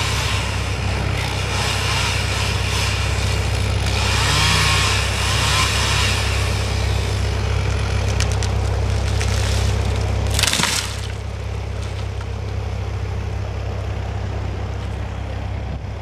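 Chainsaw running hard through the back cut of a live ash tree. About ten and a half seconds in comes a short, sharp crash of cracking and breaking wood as the tree falls, and then the saw sound drops to a lower level.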